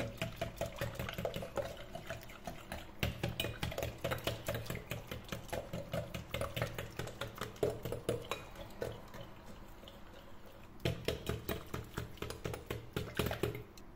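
Wire balloon whisk beating thin, liquid cake batter in a glass bowl: rapid, rhythmic clicking of the wires against the glass with wet sloshing. It eases off briefly after about nine seconds, then picks up again.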